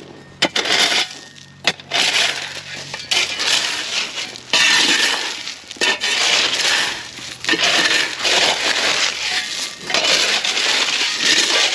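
Gravel and stone clinking and scraping in irregular bursts, as gravel is pushed off concrete retaining-wall blocks.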